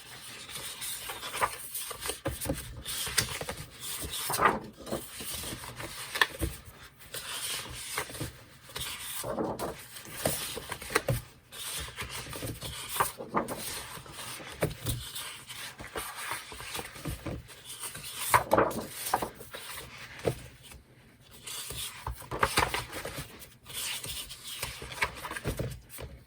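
Sheets of designer series paper being turned over and shifted by hand: irregular rustling, sliding and rubbing of paper against paper, in many short strokes.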